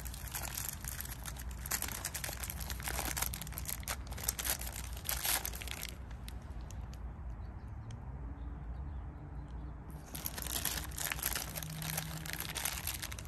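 Plastic packaging crinkling as hands unwrap a new part from bubble wrap and a small plastic parts bag, in busy spells of crackling with a quieter lull of a few seconds in the middle.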